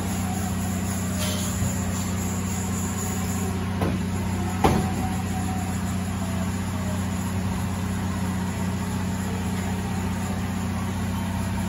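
Haas VF-6 vertical machining center running, a steady hum with a low tone and its octave as the table traverses. A sharp knock comes a little under five seconds in, with a smaller one just before it.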